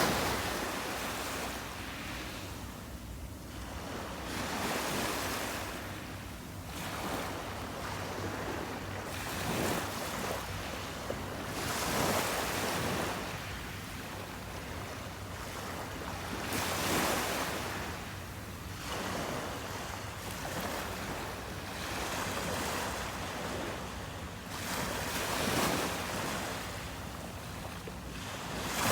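Ocean waves breaking on a beach, the surf swelling and washing back every few seconds, with some wind.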